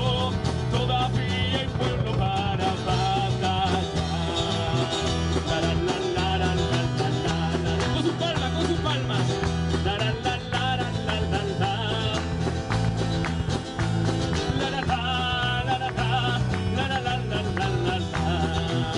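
Live praise band playing a worship song: acoustic and electric guitars and a drum kit, with singing at the microphone.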